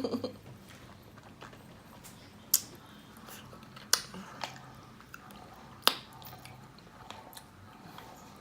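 Close-up mouth sounds of eating: wet smacks and clicks with faint chewing. Three sharp ones stand out, a second or two apart.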